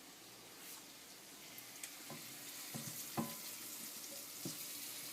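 Onions and green chillies frying in hot oil in a pan: a steady sizzle, with a few knocks of a spoon stirring against the pan from about two seconds in.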